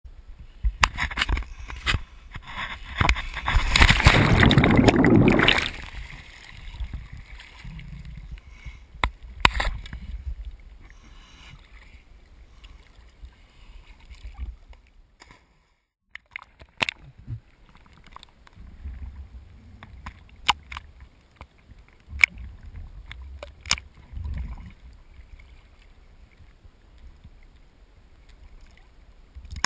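Water sloshing and splashing around a camera at the lake surface, with a loud rush of splashing about four seconds in and scattered sharp knocks from the camera housing.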